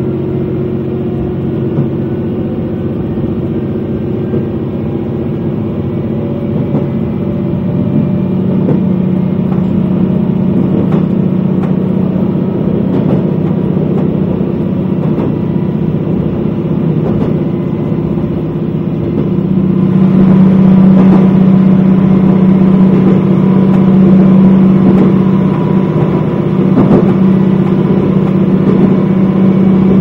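Diesel railcar running under power, its engine drone steady with occasional clicks from the wheels on the rails; it grows louder about twenty seconds in.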